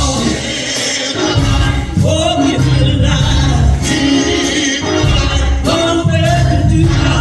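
Gospel music: singing voices over a band accompaniment with a heavy bass line.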